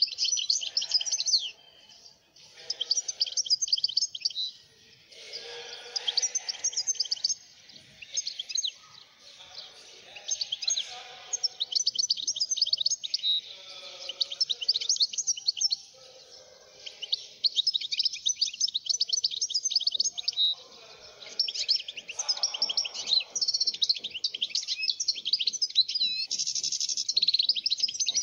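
European goldfinch singing: long phrases of rapid, twittering chirps and trills, broken by short pauses every few seconds.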